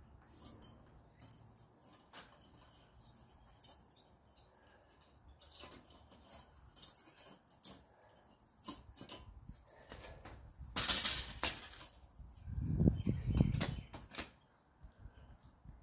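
Scattered light clicks and clinks of steel tongs and tools being handled around a gas forge and its copper-filled crucible, with a short burst of hiss about two-thirds of the way through and a low rumble just after it as the crucible is lifted out.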